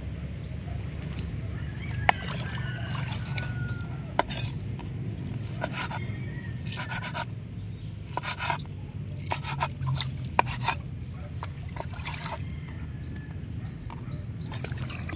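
Kitchen knife cutting peanut worms on a wooden cutting board: a few sharp taps of the blade on the board and short scraping strokes, over a steady low rumble.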